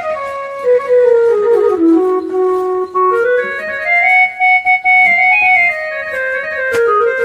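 Casio CT-X870IN/CT-X700 keyboard playing a single-line melody in one of its woodwind-like GM tones: held notes that step up and then back down. A sharp click sounds near the end.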